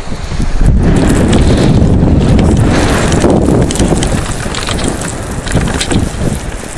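Blizzard wind buffeting the microphone: a loud, gusting rumble that swells about a second in and eases off near the end.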